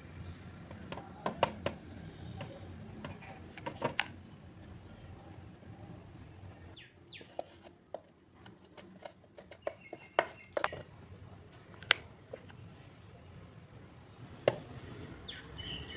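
Scattered sharp clicks and taps of a hot glue gun and a small wooden block knocking and scraping against a plastic panel as melted silicone is pressed and smoothed.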